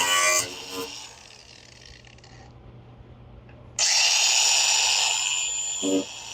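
A high-speed power tool cutting cracks out of a fiberglass bumper. It starts suddenly about four seconds in and runs with a steady high whine for about two seconds. Music plays at the start and again near the end.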